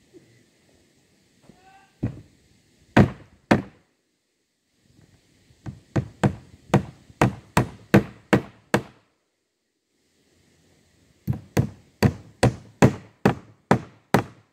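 Hammer driving nails into wood: a few single blows, then two runs of quick, even strikes, about three a second.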